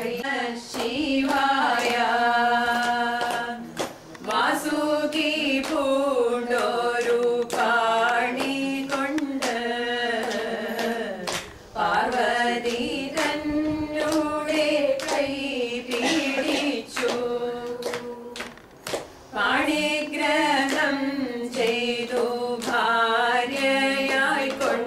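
A group of women singing a Hindu devotional song together without instruments, holding long wavering notes line by line, with hand claps keeping time.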